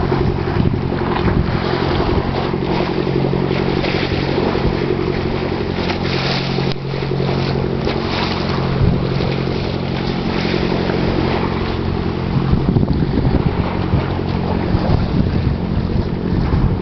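Wind buffeting the microphone over choppy sea water against a harbour pier, with a steady low engine hum underneath that weakens about twelve seconds in.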